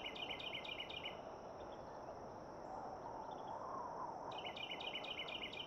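Outdoor insect chorus of crickets: quick chirping at about four pulses a second that stops about a second in and starts again near the end, over a steady high-pitched trill and a low hiss.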